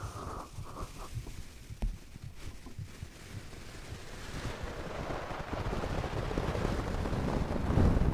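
Muffled low heartbeat thumps and rumble, as if heard through a sleeping person's chest, with a few sharp clicks in the first couple of seconds. A rushing noise swells over the second half and peaks near the end.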